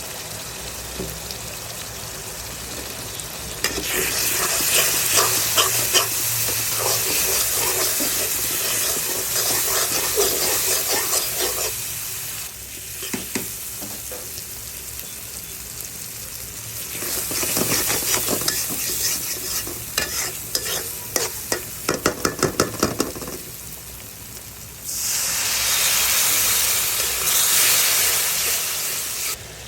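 Food sizzling in hot oil in a pan while being stirred, in three loud spells with quieter gaps between. A quick run of spatula clicks and scrapes against the pan comes about two-thirds of the way through.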